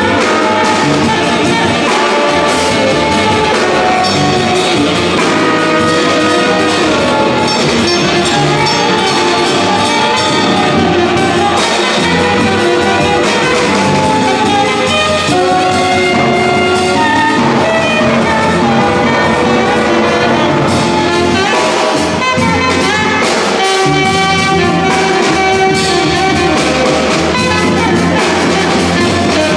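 Live jazz band playing: several saxophones on the melody over a drum kit and upright bass, a loud, steady groove.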